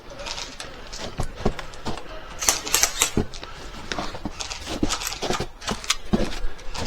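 Airsoft guns firing: many sharp, irregular clicks and snaps of shots and BBs striking, clustered into bursts.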